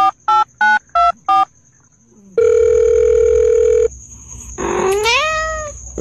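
Electronic phone-keypad-style beeps, about three a second, stopping about a second and a half in. After a short pause comes one long steady beep, and near the end a rising sweep in pitch.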